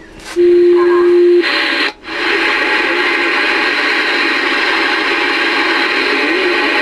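Galaxy DX-2547 CB base station's speaker: a steady tone lasting about a second, a brief cut-out, then steady hissing receiver static as the radio goes on the air.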